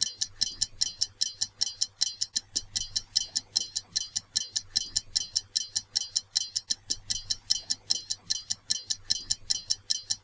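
Ticking-clock sound of a countdown timer: a quick, even ticking, about four ticks a second, marking the seconds running out.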